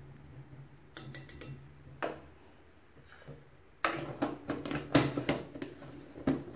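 Utensils and containers being handled on a kitchen counter: a few light clicks and taps of a spoon, then a busier run of knocks and clinks in the second half, over a faint low hum.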